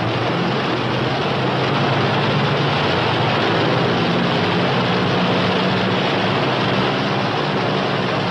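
Northrop P-61 Black Widow's twin Pratt & Whitney R-2800 radial engines running at low power as the aircraft taxis: a steady, heavy engine noise.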